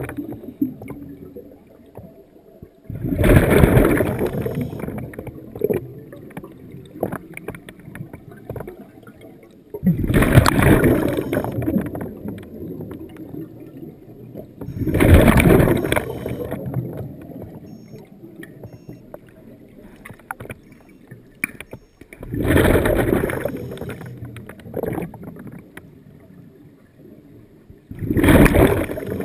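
A scuba diver's exhaled bubbles rushing from the regulator, heard underwater: five long bursts, about one every six seconds, with quieter hiss between.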